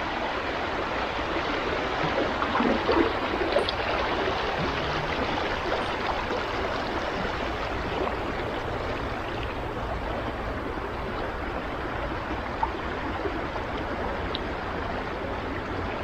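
Creek water flowing steadily, a continuous rushing babble.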